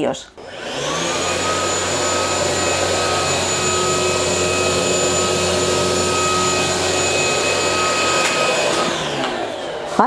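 Rowenta X-Force Flex 15.60 cordless stick vacuum running. Its motor spins up with a rising whine about half a second in, runs steadily with a high whine over a rushing of air, then winds down with a falling whine near the end.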